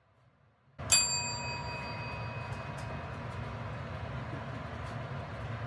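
A chrome desk service bell struck once about a second in, its ding ringing out and fading over the next few seconds, over a steady rushing noise.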